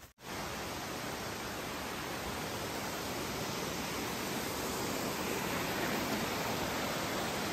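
Steady rushing roar of a large waterfall, an even noise with no rhythm, cutting in abruptly a moment in.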